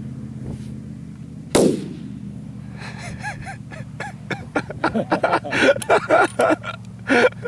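A single rifle shot cracks about a second and a half in, with a short ringing decay, fired at a prairie dog at long range. About a second later excited shouts and gasps follow, over a steady low hum.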